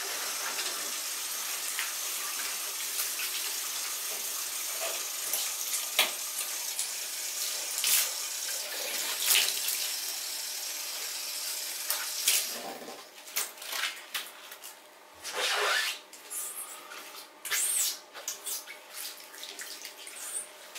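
Water running steadily into an acrylic bathtub while a gloved hand rubs the foamy surface; the water stops about twelve seconds in, leaving irregular short rubbing and splashing sounds of the glove on the wet tub.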